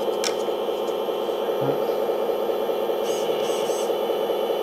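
Electric hydraulic pump of a 1/14 scale RC hydraulic excavator running with a steady hum while the grab clamps a piece of wood, with a few short high chirps about three seconds in.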